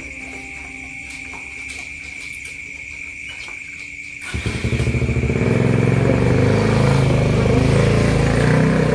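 A constant thin high whine with faint background music, then about four seconds in an engine abruptly starts running close by. It is loud, with a fast pulsing rumble.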